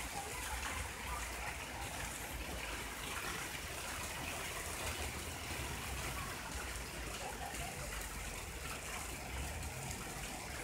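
Rain mixed with hail falling on paving stones and a wet street, a steady dense patter and hiss.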